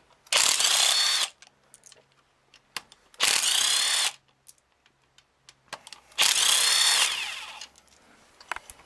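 A handheld power tool runs in three bursts of about a second each, its motor whining as it spins out bolts holding an engine's front cover and oil pan.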